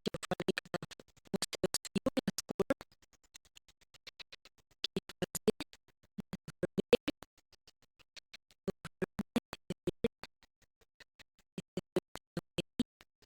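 Background electronic music made of rapid, evenly spaced staccato clicks and short plucked notes, in alternating louder and softer stretches.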